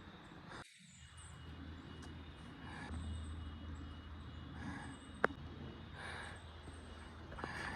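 A hiker's steps and breathing on a steep woodland trail, with soft bursts every second or two over a low rumble of wind on the microphone, and a sharp click about five seconds in.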